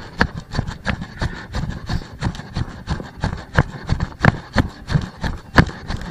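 Footsteps of a hiker walking on a trail, about one and a half steps a second.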